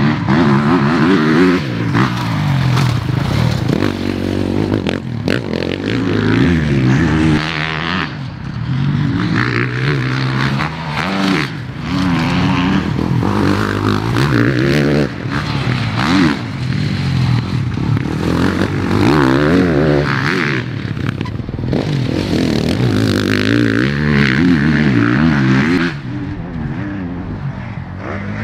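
Motocross bike engine being ridden hard round a dirt track, its pitch climbing and falling again and again as the throttle opens and shuts through the turns and gear changes.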